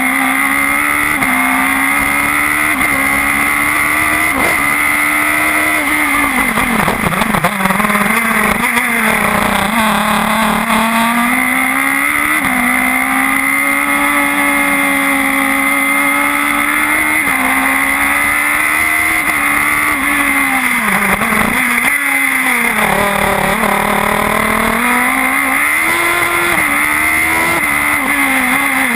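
Radical SR4 sports-racer's engine at high revs, heard from on board, stepping through quick gear changes as it pulls down the straights. Twice the revs fall away with a flurry of short blips as the car brakes and downshifts for a corner, then it climbs again through more upshifts.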